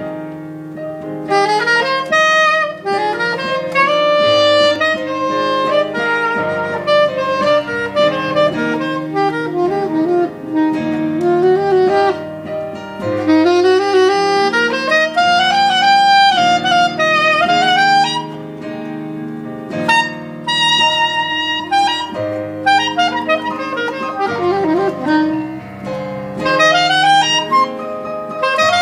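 Soprano saxophone playing a slow, expressive melody with slides between notes and vibrato on held notes, over sustained lower chords.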